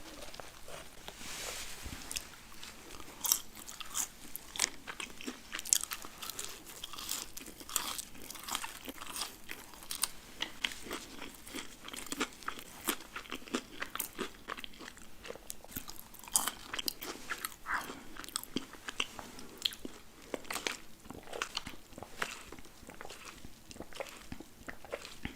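Close-up eating sounds of burger and French fries: irregular crunchy bites and chewing, with many small sharp crunches throughout.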